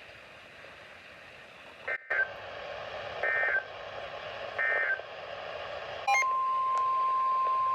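Three short warbling bursts of Emergency Alert System digital code, about a second and a half apart, mark the end of the warning message. About six seconds in, a loud steady EAS attention tone on a single pitch starts and holds.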